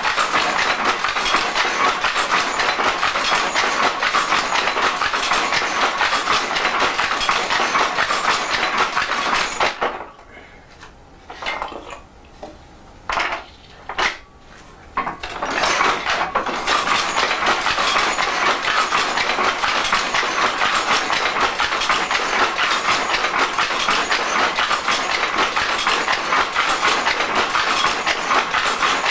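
Hattersley single-width loom weaving Harris tweed, treadle-driven: a fast, steady clatter of shuttle and beater. It stops about ten seconds in, a few knocks follow, and the clatter starts up again about six seconds later.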